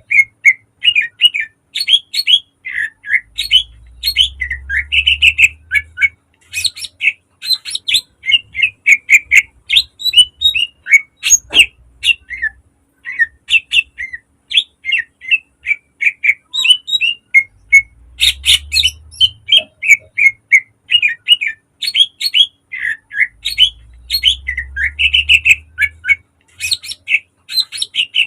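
Greater green leafbird (cucak ijo) singing a rapid, unbroken stream of short, sharp notes, its song full of imitated calls of other birds.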